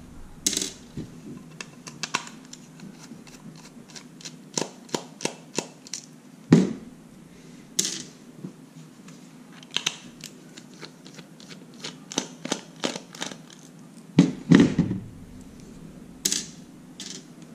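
Irregular light clicks and taps of a precision screwdriver and small screws on a hard plastic outlet housing as triangular screws are backed out, with a few louder knocks.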